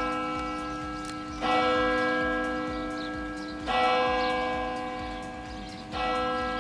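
A single church bell tolling, struck three times about two and a quarter seconds apart, the same note each time, each stroke ringing out and slowly fading into the next.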